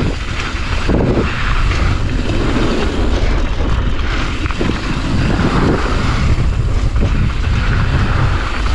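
Wind buffeting the camera microphone and the knobby tyres of a Specialized Kenevo SL e-mountain bike rumbling over a rutted dirt trail on a fast descent, with occasional knocks from the bike hitting bumps.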